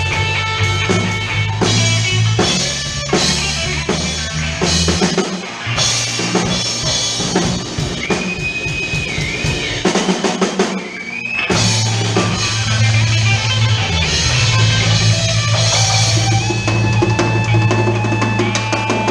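Blues-rock band playing: drum kit with bass drum and snare hits and fills over a bass line, with held guitar notes. A long guitar note bends about halfway through.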